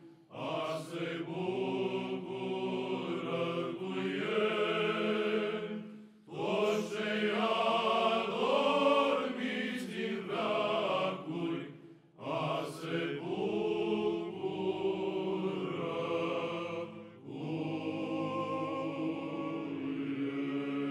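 Large male psaltic choir singing a slow carol in phrases a few seconds long, with brief breaks between them, over a steady low held drone. It settles into a long held chord near the end.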